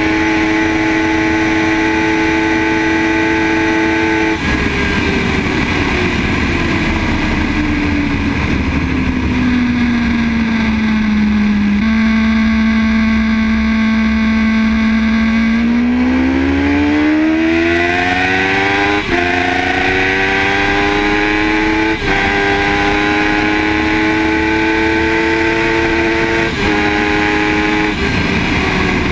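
Superbike engine at speed with heavy wind rush. It holds steady revs, then the throttle closes and the revs wind down slowly for several seconds. About halfway through it accelerates hard, its pitch climbing with a few short breaks.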